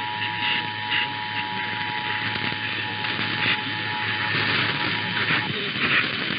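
Off-air radio reception noise: a steady hiss with brief garbled, voice-like fragments and a low hum. Underneath runs a faint steady two-note tone that cuts off about five and a half seconds in.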